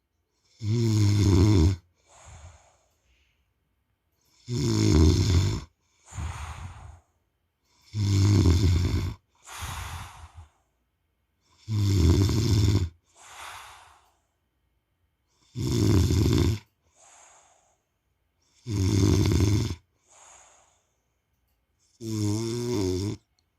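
A man snoring in a steady rhythm: seven loud snores about every three and a half to four seconds, each followed by a shorter, quieter breath.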